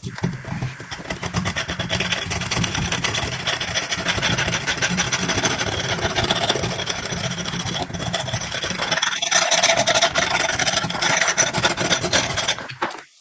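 Continuous abrasive rasping of a rusted steel cleaver blade being sanded or filed. It gets louder and brighter from about nine seconds in.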